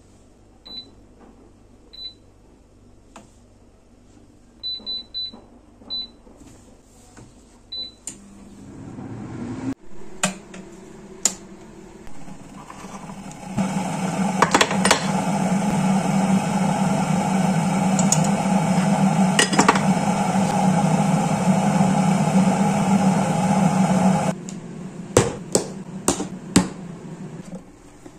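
An air fryer's touch panel gives several short high beeps. Then a stainless electric kettle comes to the boil with a loud, steady rushing noise and low hum that cuts off suddenly about three-quarters of the way through as it switches itself off, followed by a few sharp clicks and taps.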